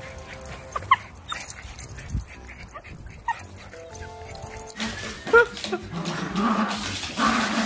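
Dog whimpering in a few short high cries over background music. About five seconds in, a small dog playing tug-of-war with a toy makes louder, rapid whines and yips.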